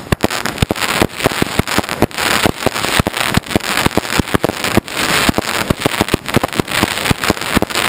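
Aerial fireworks shells bursting overhead: a dense, continuous run of sharp pops and bangs, several a second, over a crackling hiss.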